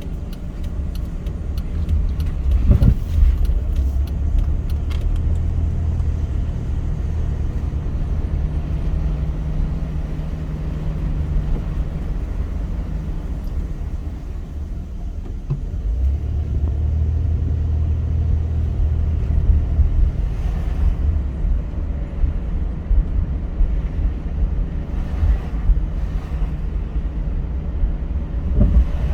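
Car driving, with a steady low rumble of road and engine noise and a few brief bumps.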